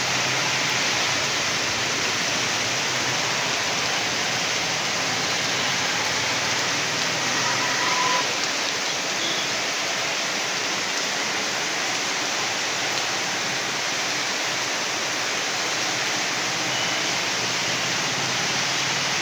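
Heavy rain falling steadily on pavement, earth and a street: a dense, even hiss that keeps up without a break.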